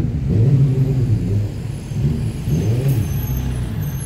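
Street traffic: a passing motor vehicle's engine running loud, its note rising and falling, loudest near the start.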